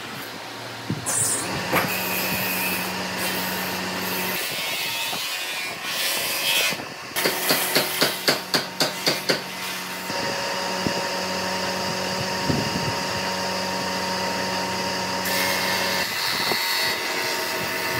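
Wooden blocks being set down and knocked against each other on a board, with a quick run of about ten sharp wooden clacks around the middle, over a steady background hum.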